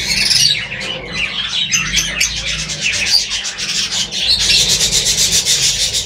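Lovebirds chirping in a fast, even run of high notes that builds from about two seconds in, over the rustle of a hand moving among the chicks in dry nesting straw.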